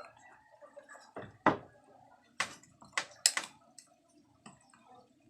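A handful of short, sharp clicks and knocks, about six in three seconds, with a few fainter taps after.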